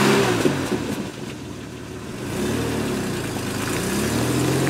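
Ford Bronco II's V6 engine revving up and dropping back twice, then rising again and holding a steady higher pitch as the truck moves off.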